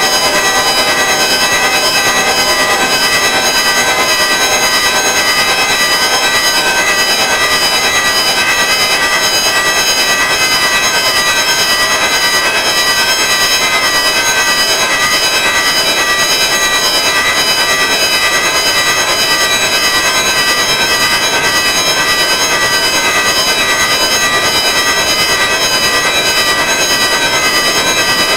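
Electronic sequencer drone music: a dense cluster of held, partly unharmonic high tones sounding together at a steady loud level, with a fast even flutter.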